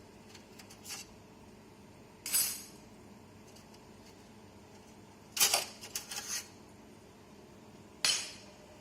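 Sharp metallic clinks from metal computer-case parts being handled during a video card install. A few light ticks come first, then a ringing clink about two seconds in, a quick run of rattling clinks a little past halfway, and a last ringing clink near the end.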